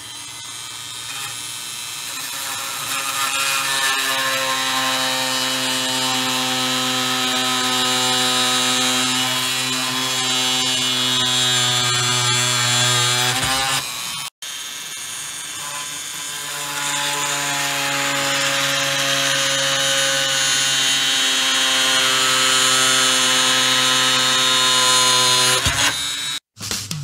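Handheld corded rotary tool running at high speed, cutting through a truck grille's mesh: a steady high whine with a grinding hiss. It breaks off abruptly about halfway through, then runs again.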